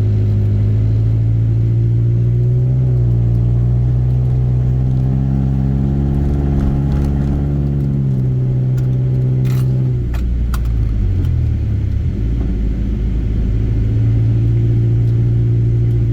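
Honda CR-V's four-cylinder engine droning steadily while driving, with road rumble under it. About ten seconds in the engine note drops away and a few sharp clicks sound, then the drone comes back near the end.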